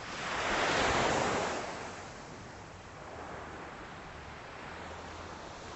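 Small Atlantic waves on a calm sea breaking and washing up the beach: one wave's rush swells about a second in and fades, then a steady surf hiss.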